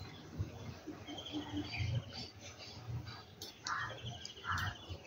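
Small birds chirping: a rapid, evenly pulsed trill about a second long, heard twice, with a few short calls near the end, over a low background rumble.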